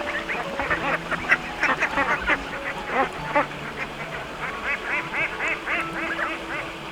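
A flock of ducks quacking, many short calls overlapping in a steady chatter.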